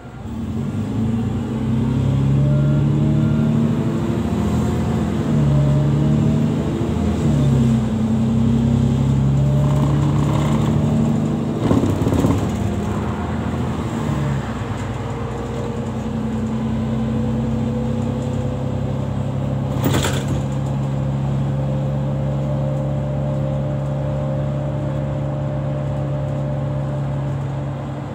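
City bus engine pulling away, its note rising and dipping a few times as the bus gathers speed, then holding a steady drone while it cruises. A brief rattle comes about twelve seconds in and a single sharp knock about two-thirds of the way through.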